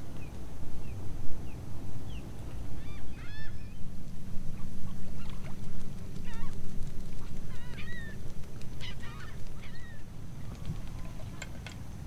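Waterbirds calling: scattered short honking calls, several in quick runs through the middle, over a steady low rumble.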